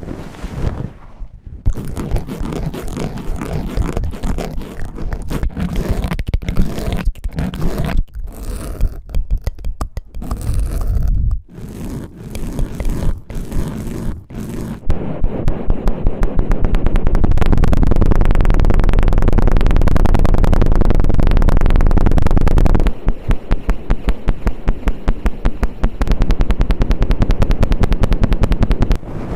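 ASMR ear-cleaning sounds: an ear scraper scraping and rubbing close against the microphone, first in separate strokes, then past halfway in a fast, continuous rubbing that breaks back into rapid strokes near the end.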